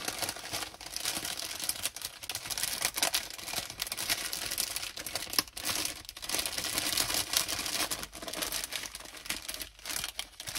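Small plastic bags of craft crystals crinkling and crackling as they are handled.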